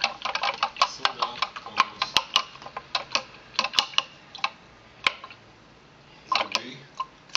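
Rapid, irregular sharp clicks and taps, dense for the first four seconds or so, then thinning out to a few scattered clicks.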